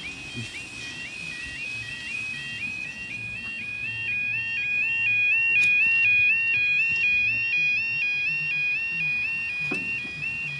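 Railway level crossing warning alarm sounding as the barriers come down: an electronic two-tone yodel warbling between a higher and a lower pitch about two to three times a second, growing louder about halfway through. It warns that a train is approaching.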